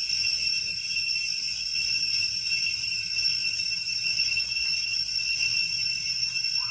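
Steady, high-pitched insect chorus in the forest canopy, a continuous ringing drone that holds level without pause.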